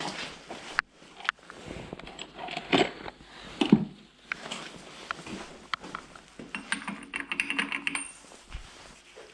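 Small metal parts and hand tools clinking, knocking and rattling as they are handled during work on a motorcycle, with a quick run of ticks about seven seconds in.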